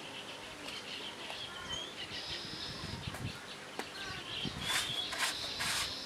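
Small birds chirping repeatedly, with a few short bursts of rustling noise near the end.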